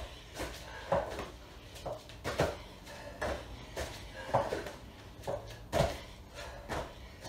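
Thuds of hands and feet landing on rubber gym mats as two people do burpees out of step, a jump landing and a drop to the floor each time, in an irregular run of about one to two thuds a second.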